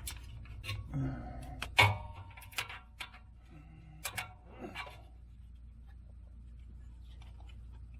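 Scattered metal clicks and clinks of hand tools against car parts while a starter motor is lined up for fitting, the loudest about two seconds in, dying away after about five seconds into a steady low hum.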